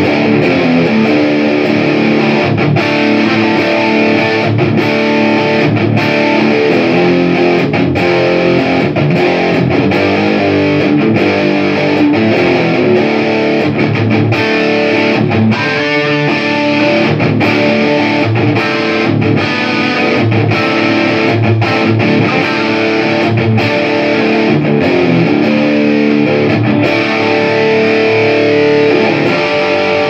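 Electric guitar played through a Line 6 Flextone III XL 2x12 modelling combo amp, continuous chords and lines with only brief breaks. The volume holds steady without dropping out, as expected for an amp whose volume drops were cured by cleaning and resoldering its pots.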